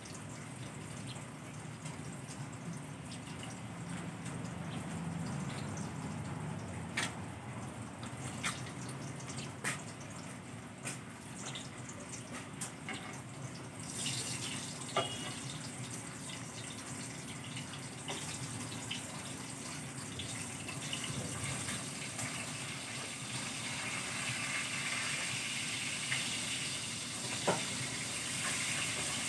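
Water spraying from a garden hose onto plants and ground, a steady hiss that turns brighter about halfway through, with a few scattered light clicks.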